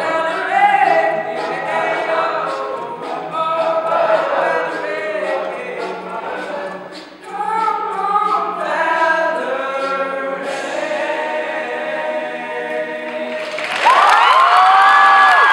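All-male a cappella group singing in close harmony, with light vocal-percussion clicks, ending on a held chord. Near the end the audience breaks into loud cheering, whoops and applause.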